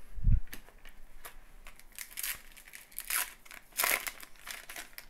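Foil trading-card pack wrapper crinkling and tearing as it is pulled open by hand, in a run of sharp crackles that peak about three to four seconds in. A low thump comes right at the start.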